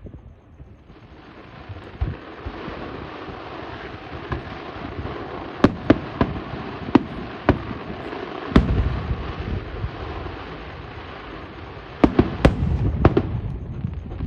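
Aerial fireworks bursting: a steady crackle and hiss of shells going off, with a run of sharp booming reports in the middle and another quick cluster of bangs near the end.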